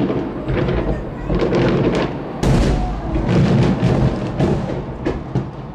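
Fireworks shells bursting in quick succession: a dense run of sharp bangs and booms over a continuous low rumble.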